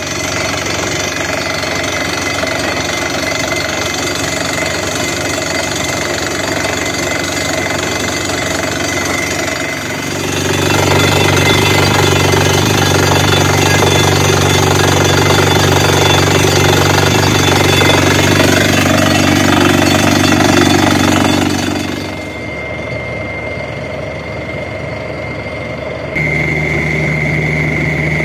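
Truck-mounted borewell rig drilling rock with its down-the-hole air hammer: the rig's diesel engine and air compressor running hard while compressed air blasts dust and rock cuttings out of the bore. The sound gets louder and deeper about ten seconds in and eases back several seconds before the end.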